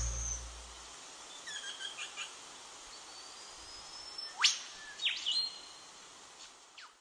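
Background music fades out in the first second, then wild birds call faintly in the bush: scattered chirps, a thin drawn-out whistle, a sharp whip-like upward sweep about four and a half seconds in, and a few short calls after it.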